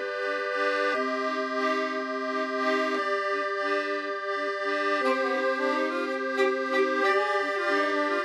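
Background music: held, reedy chords that change about every two seconds, with quicker notes and light taps joining about halfway through.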